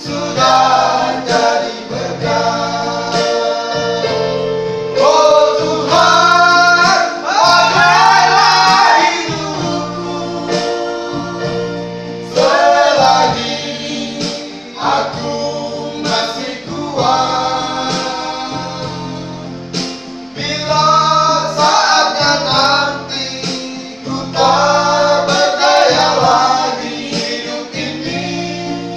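Several men singing a gospel song together, in parts, over an electronic keyboard accompaniment with a steady, evenly repeating bass rhythm.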